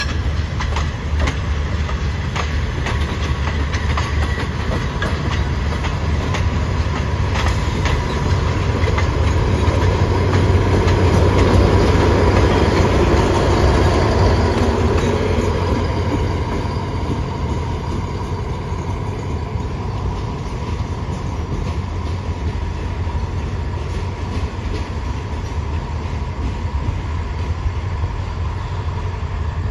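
A passenger train rolls slowly past, its wheels clicking over the rail joints over a steady low rumble, with a faint steady high tone. It grows loudest about halfway through as a diesel locomotive passes close by, then eases off as the train draws away.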